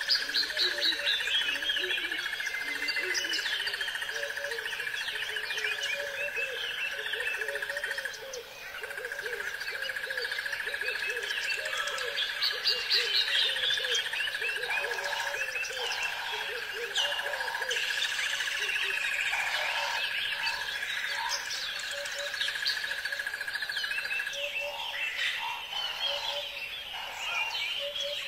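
A chorus of frogs and birds: frogs calling in short repeated notes and birds chirping in quick falling phrases, over a steady high-pitched trill that breaks off briefly about eight seconds in and stops about twenty-four seconds in.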